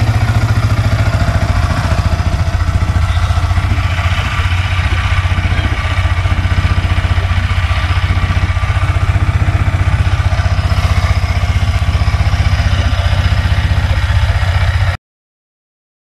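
Yamaha MT-15's 155 cc single-cylinder engine idling steadily through its stock exhaust. The sound stops abruptly near the end.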